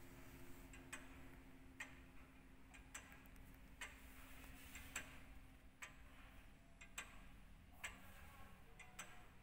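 Faint, even ticking of an antique pendulum cabinet clock's large weight-driven movement, about one tick a second, alternating tick and tock.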